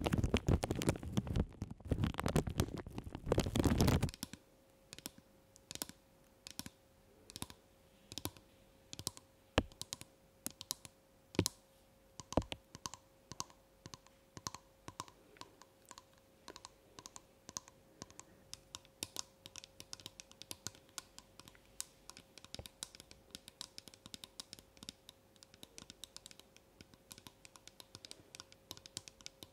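Plastic bags crinkled over the microphones for about the first four seconds, then fingernails tapping on a small pump bottle: light, irregular clicks that come quicker toward the end.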